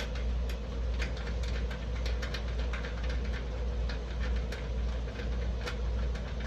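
Socket ratchet clicking in short irregular runs while loosening the 1/2-inch trunk lid hinge bolts, over a steady low hum.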